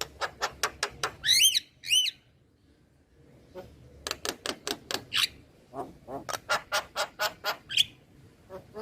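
Male Javan myna (jalak kebo) calling. Rapid runs of short, clipped notes are broken by two loud rising-and-falling whistled calls about a second in, then a brief pause. More fast runs of notes follow, each ending in a single sharper call.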